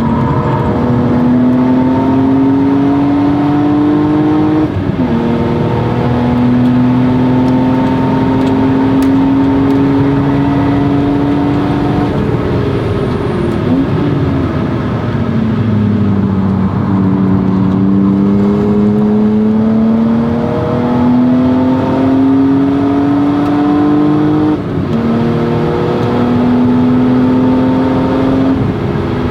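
1997 BMW E36 M3's inline-six engine through a Stromung cat-back exhaust, pulling hard on track: the pitch climbs through gear changes, falls away under braking in the middle, then climbs again through more shifts.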